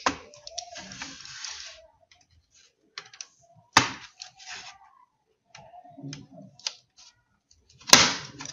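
Plastic clips of an ASUS X553M laptop's keyboard top case snapping loose as the case is pried apart. There are three sharp cracks, one at the start, one about four seconds in and one near the end, with scraping and light plastic clicks between them.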